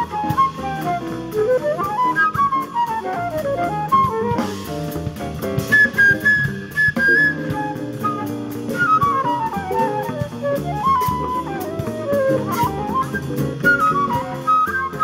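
Live jazz flute solo in fast runs that sweep down and back up, over upright bass and a drum kit keeping time on the cymbals.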